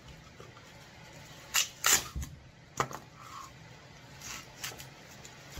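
Cured expanding spray foam being pried and torn off a pack of lithium iron phosphate battery cells: a few sharp crackles and scrapes, the loudest between about one and a half and three seconds in, with softer ones after.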